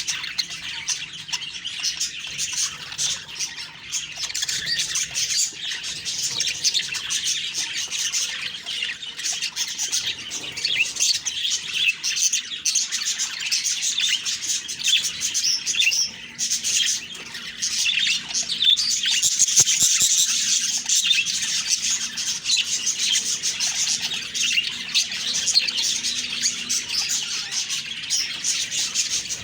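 Budgies (budgerigars) chirping and warbling continuously, several birds at once, with occasional squawks.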